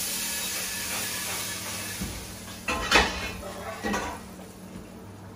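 Steady hiss from inside a hot commercial oven holding a metal tray of buttered cauliflower and courgettes. It is followed by three sharp metal knocks about three seconds in, the middle one the loudest.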